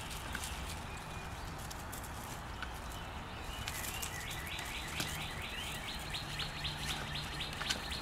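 Schnauzer puppy digging and pawing in the soil of a plastic flower pot: scattered scratchy clicks, two of them sharper. From about halfway, a bird's rapid repeated call of about six short notes a second sounds in the background for a few seconds.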